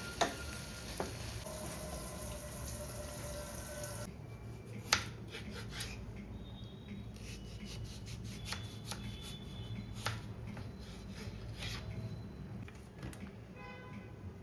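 Food sizzling in a pan, a steady hiss that stops abruptly about four seconds in, followed by scattered light clicks and taps.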